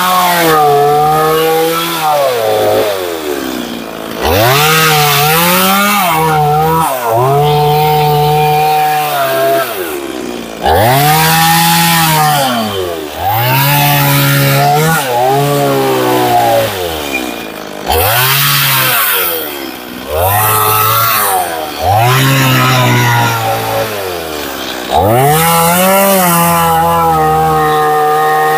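Two-stroke Stihl chainsaw carving a pine post, the engine revving up to speed and easing off again and again as the chain bites in and pulls out, every two to three seconds.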